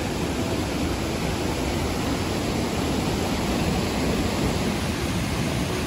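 Swollen mountain stream rushing over rocks in a steady, even roar of whitewater, running high from heavy rain.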